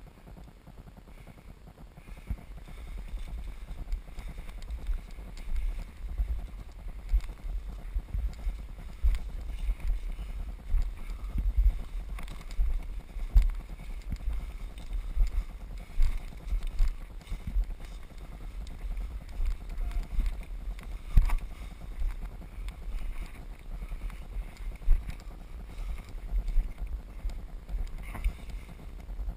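Low, uneven rumbling and thumping on the microphone, typical of wind buffeting and movement of a camera carried while walking, getting louder about two seconds in.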